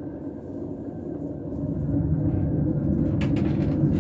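Steady low rumble of a moving cable car cabin, heard from inside, growing louder about halfway through, with a brief rattle near the end.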